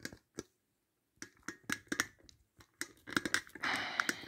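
Handling noise from the recording phone: a scattering of small clicks and taps, then a short rustle near the end.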